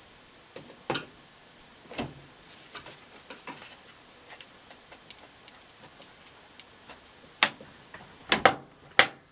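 Scattered sharp clicks and knocks from working at a stubborn, brittle plastic part of an old front-load washing machine: a few single clicks spaced about a second apart, then a quicker cluster of louder clicks near the end.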